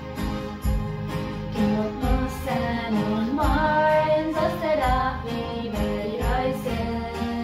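A Christian song sung in Plautdietsch (Mennonite Low German), a singer carrying the melody over an instrumental backing with a steady beat.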